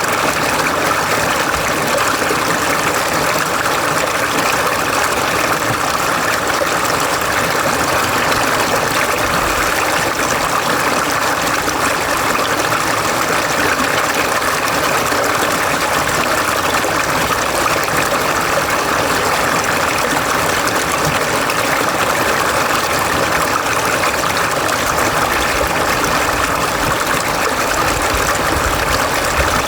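Mountain valley stream flowing, a continuous, even rush of water that holds steady throughout.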